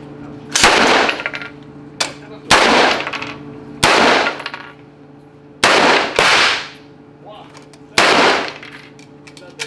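Gunshots from a firearm fired one at a time at a range, about six shots roughly every one to two seconds, each loud crack followed by a ringing tail.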